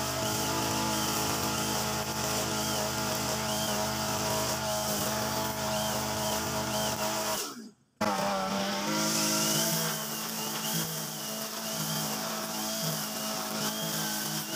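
Mitsubishi brush cutter engine running at high speed while its nylon line head cuts grass, the engine note wavering as the line meets the grass. The sound cuts out for a moment about halfway through, then the engine runs on.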